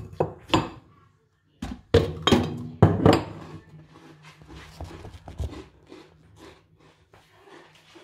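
Knocks and thunks of a phone being handled and moved on a kitchen counter, with light clinks. Several sharp knocks come in the first three seconds, then softer small clicks follow.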